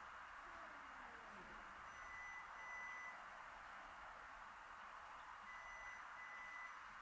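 Faint electronic beeping: two short, steady beeps, then after a pause another two, over a steady low hiss of background noise.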